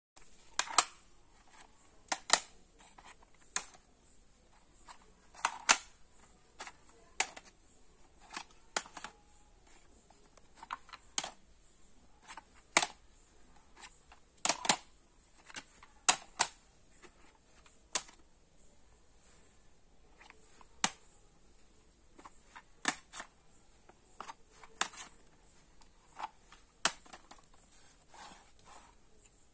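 Plastic audio cassette cases clacking against each other as they are picked up and shuffled through the stacks: irregular sharp clicks, one or two every second or so, with short pauses between.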